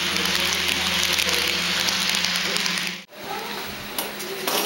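HO scale model freight train rolling past, its wheels on the track making a steady hiss and clatter with a low hum under it. The sound cuts off abruptly about three seconds in, leaving quieter room sound with a couple of clicks near the end.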